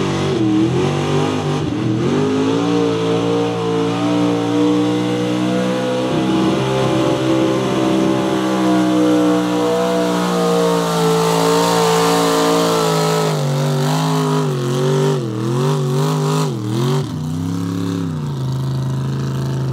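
Mega truck engine running hard under load while pulling a weight sled. Its pitch holds steady, then rises and falls several times about three-quarters of the way through before settling lower.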